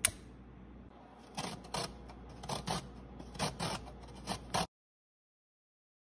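Fresh ginger root being broken by hand and grated: a sharp click at the very start, then about ten short rasping strokes in uneven clusters, stopping abruptly shortly before the end.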